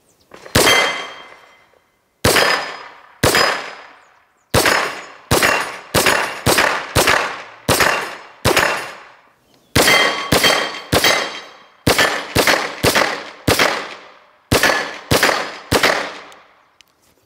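Schmeisser AR15-9 Sport 9 mm pistol-calibre carbine firing about twenty semi-automatic shots in quick, uneven strings. Each shot is followed by a short ring as the bullet strikes steel targets.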